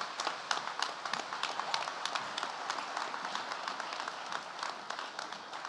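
Audience applauding: many hands clapping densely, thinning out and fading near the end.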